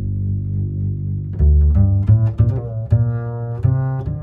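Background music: a tune of low pitched notes, some short and some held.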